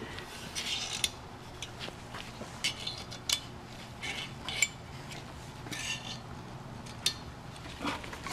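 Scattered light metallic clicks, clinks and short scrapes of metal engine parts being handled against the aluminium cylinder bore of a Subaru EJ253 engine block, over a faint low hum.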